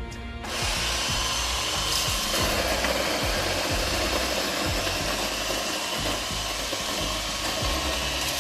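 Welhome ZD-16 electric espresso grinder switching on about half a second in and running steadily, grinding coffee beans at its finest setting. The grinding grows fuller about two seconds in.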